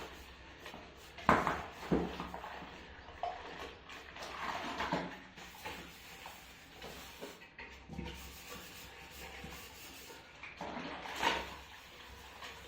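Dishes and pots clinking and knocking as they are washed by hand, in scattered knocks and scrapes, the loudest about a second in, around five seconds in and near the end.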